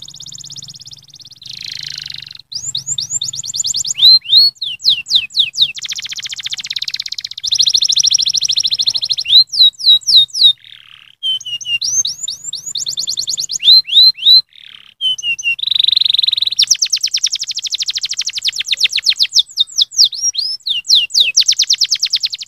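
Domestic canary singing a long, loud song of fast trills and quickly repeated high notes, changing from one trill to the next, with two short pauses.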